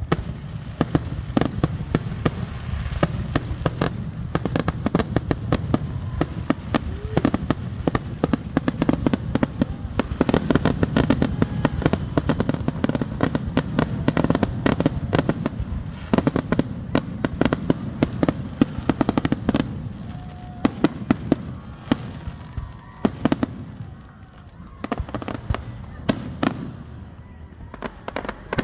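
Fireworks display: a fast, dense run of bangs and crackles, thickest in the middle and thinning out toward the end.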